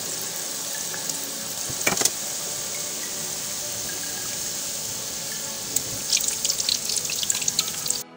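Chaklis deep-frying in hot oil in a steel pan: a steady sizzle of bubbling oil, with sharp crackles about two seconds in and more often near the end.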